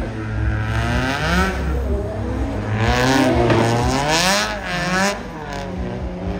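Drift car's engine revving up and down over and over as the car slides through a drift, with hissing tyre noise. It is loudest in the middle.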